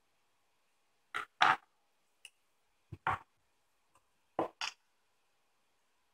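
A few short clicks and knocks, mostly in pairs, as a rebuildable dripping atomizer is handled against a resistance meter and fitted onto its 510 connector. The loudest comes about one and a half seconds in.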